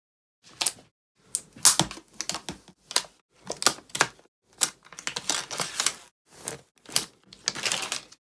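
Protective plastic film being peeled and crumpled off a replacement laptop battery: irregular sharp crackles and clicks in quick clusters, with silence between them.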